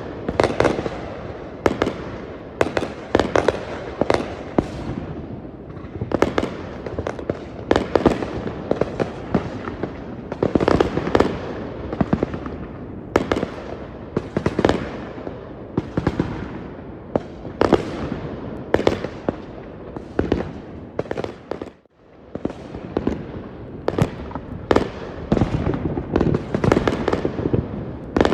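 Many fireworks going off at once: a dense, continuous run of bangs and crackling, breaking off for a moment about 22 seconds in.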